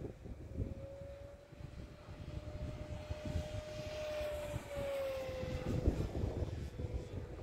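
Electric motor and propeller whine of an FMS P-47 Razorback 1500 mm RC warplane flying overhead. Its pitch climbs gently, then drops about five seconds in. Gusty wind buffets the microphone throughout.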